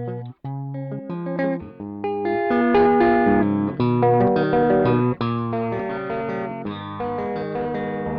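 Electric guitar riff played back from a looper through a Caline 'British Sound' pedal: short separate notes with a brief break about half a second in, then fuller, louder ringing chords from about two and a half seconds in.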